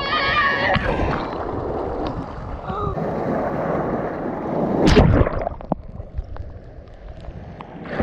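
Rough sea surf churning and washing over a camera held at the water's surface, with a loud wave surge about five seconds in, then quieter sloshing. A brief shout is heard at the start.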